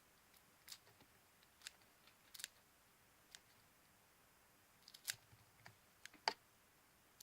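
Scissors snipping through hardened, crunchy slime: a series of short, crisp cuts at irregular intervals, the loudest about five and six seconds in.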